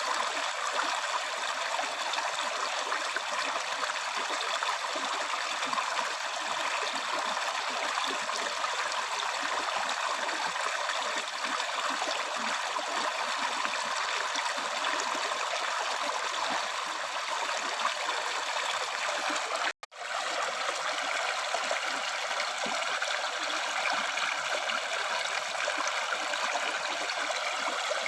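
River stream flowing, a steady rushing and babbling of water. It cuts out abruptly for a split second about two-thirds of the way through, then carries on.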